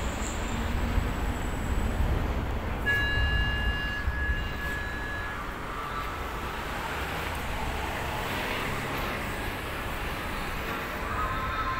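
Steady low rumble of road traffic. About three seconds in, a high steady tone sounds briefly, and several high tones begin near the end.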